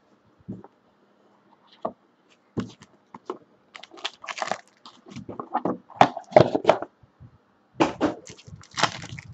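Hands opening a trading-card box and handling a plastic-wrapped pack: irregular crinkling, rustling and tapping of cardboard and plastic wrap. It is sparse at first and busier from about halfway through.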